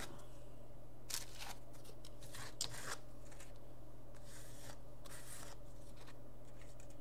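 Painted paper index cards being picked up and shifted about on a table: a few short scraping, rustling sounds, over a steady low hum.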